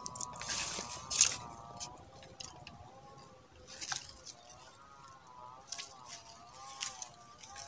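Faint rustles and small clicks from a fishing pole rod and line being handled, over a faint, steady wavering tone.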